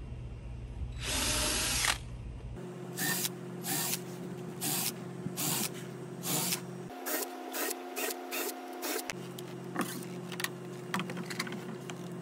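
Cordless drill driving screws through nylon rail brackets into a 2x4 rail: one short run of about a second starting about a second in, then a string of short, sharp bursts and clicks.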